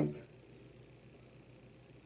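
The tail of a spoken word, then quiet room tone.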